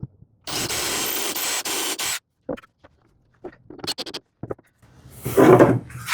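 Cordless impact driver running for about a second and a half, driving a structural screw into the leg assembly. Then a few light clicks and knocks, and a scrape near the end.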